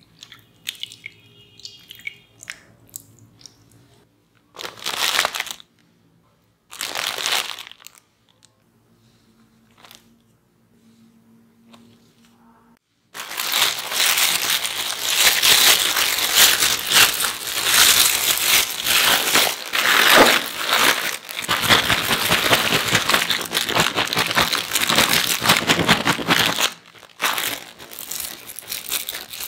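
Clear plastic bag holding thin potato slices and cornstarch, shaken and crinkling loudly for about thirteen seconds in the second half, after two short rustles earlier on.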